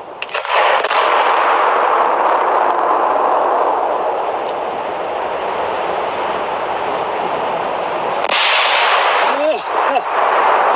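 A large firework going off with a continuous loud rushing hiss for about eight seconds; near the end the sound turns brighter and sharper.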